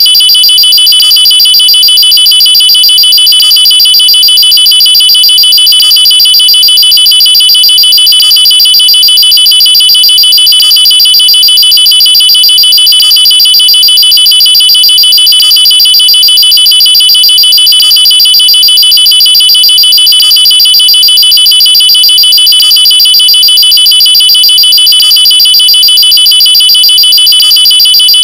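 Loud, high-pitched electronic nuclear alarm tone, held at one steady pitch and pulsing rapidly without a break.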